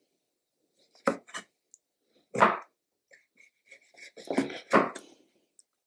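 Chef's knife cutting the hard brown skin off pieces of coconut flesh on a plastic cutting board: about six sharp strokes of the blade at irregular intervals, two of them close together near the end.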